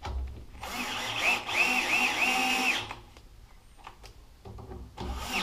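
Cordless drill/driver running in two trigger pulls of about a second each, driving a bolt to fasten a new feed wheel onto a shaper power feeder. Its whine dips and recovers a few times as the bolt tightens. A shorter burst of noise comes near the end.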